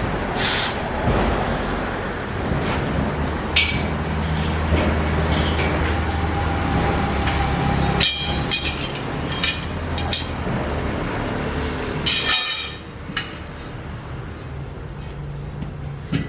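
A machine running with a steady low hum, with short bursts of hissing and clatter about eight and twelve seconds in; the hum drops away sharply after about twelve and a half seconds.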